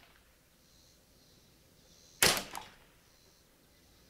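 A single .22 LR rifle shot from a Kidd Supergrade Ruger 10/22-pattern semi-automatic, about two seconds in, with a short echoing tail. It is one shot in a string of group shooting.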